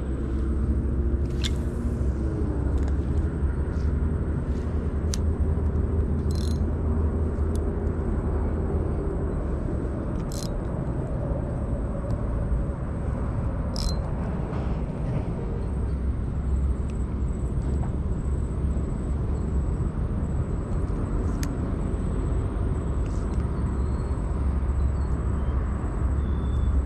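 Steady low rumble of wind buffeting the camera microphone over open water, with a faint steady high whine and a few scattered short clicks.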